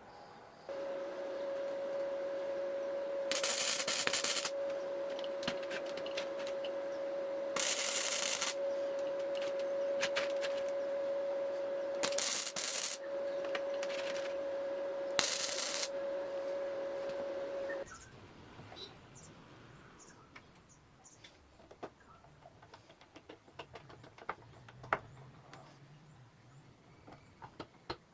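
An electric power tool's motor running with a steady whine. Four times it cuts in with a loud rushing noise for about a second, then it switches off at about eighteen seconds, leaving faint clicks and knocks.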